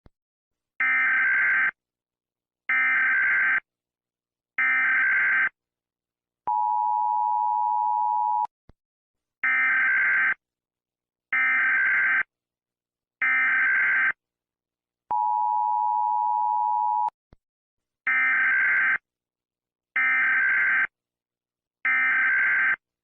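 Emergency Alert System tones: three short, harsh digital data bursts (the SAME header), then a steady two-tone attention signal for about two seconds, the pattern repeating three times.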